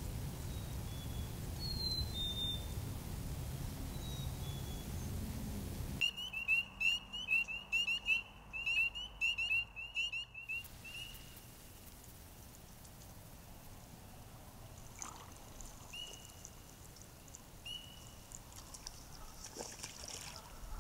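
A low rushing noise, then about six seconds in a fast run of short, high, upward-sliding peeps, several a second, for about four seconds, with a few single peeps afterwards: spring peepers calling at night.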